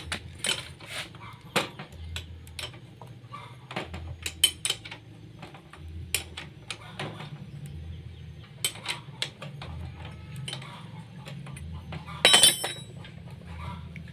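Hand wrenches clinking and knocking against the metal of a motorcycle's front disc brake caliper and its rusted bolts as they are worked loose: scattered sharp metallic clicks, with the loudest burst of clinks about twelve seconds in.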